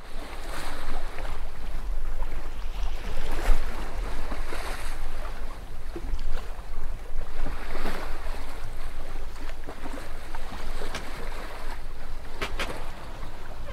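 Sea water rushing and splashing in surges, with wind buffeting the microphone in a low rumble.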